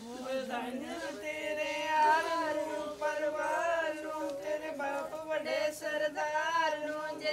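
A group singing a traditional Punjabi wedding folk song, long held notes with vibrato.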